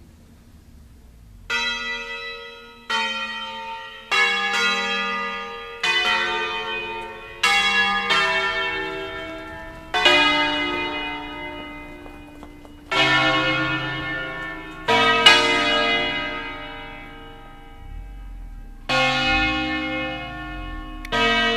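Church bells from a ring of eight in B-flat, cast by Pruneri, hung on wheels. They are struck one after another in a slow, uneven melodic sequence of about a dozen strokes, starting about a second and a half in. Each note rings on and fades under the next, as in the festive Bergamasque bell concerto.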